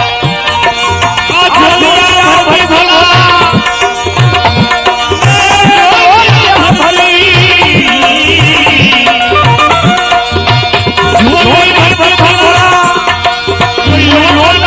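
Instrumental interlude of a Gujarati devotional bhajan: tabla plays a steady rhythm under melody instruments, and a fast, wavering high melodic line comes in about halfway through.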